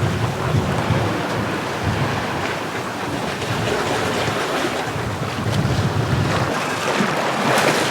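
Wind buffeting the microphone over the rush of choppy sea waves around a sailboat under way, swelling louder near the end.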